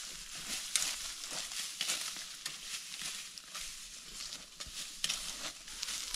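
Dry ripe grain stalks crackling and rustling as they are pulled up by hand and gathered into a bundle, in uneven crisp handfuls.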